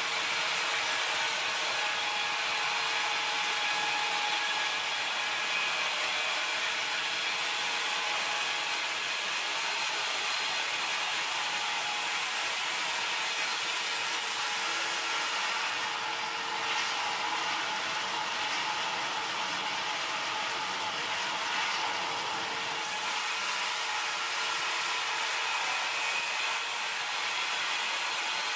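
MKS1200 automatic horizontal band sawmill running and sawing through logs: a steady rasping hiss of the band blade in the wood over a steady machine hum. For several seconds past the middle the highest part of the hiss dulls.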